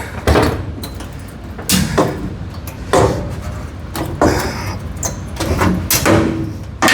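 A string of irregular metal clunks and knocks in the bus's sheet-steel body, with the cut-off seat back being worked loose and pulled out.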